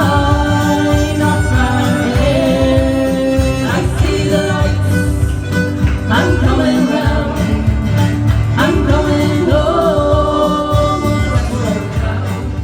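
Folk band music playing at full level, an instrumental passage with a bending melody line over a steady strummed backing.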